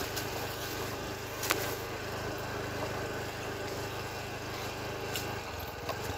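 Motorcycle engine running steadily while riding, with rushing wind noise over it. There is a sharp click about a second and a half in, and the engine's low hum drops away near the end as the rider eases off.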